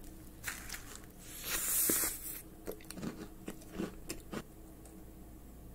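Close-miked bite into a crisp macaron: a loud crunch of the shell about a second and a half in, followed by chewing with a run of short crackles.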